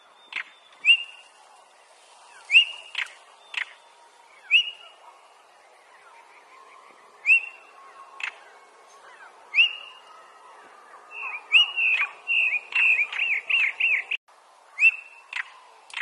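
Male European stonechat calling: short rising whistles alternating with sharp, stone-like clicking 'tchak' notes, then a quicker run of notes about eleven seconds in.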